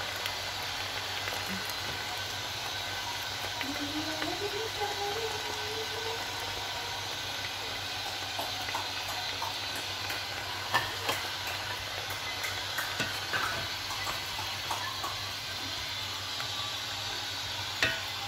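Bok choy stir-frying in a pot: a steady sizzle, with a few sharp clicks of a utensil against the pot from about ten seconds in.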